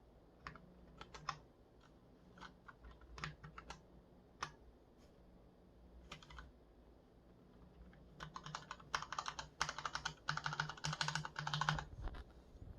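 Typing on a Cherry MX Board 1.0 mechanical keyboard with Cherry MX Red linear switches: scattered single keystrokes at first, then a fast burst of continuous typing from about eight seconds in.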